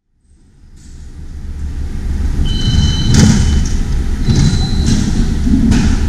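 Station ticket gates: a steady low rumble fading in from silence, with short steady electronic beeps and two sharp clacks of the gate paddles, about three and five and a half seconds in.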